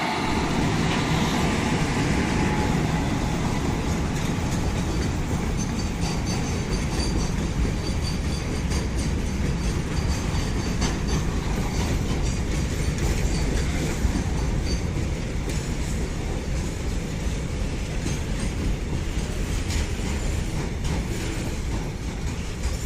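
Trivandrum Mail express passenger train running close by: a steady loud rumble with wheels clattering over the rail joints.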